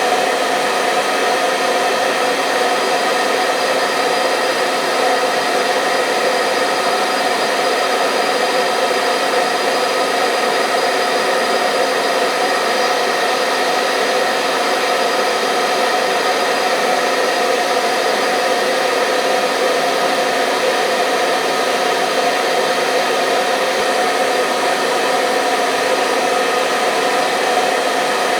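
Hair dryer running steadily: an even rush of blown air with the steady hum of its motor, unchanging throughout, used as a continuous sleep sound for babies.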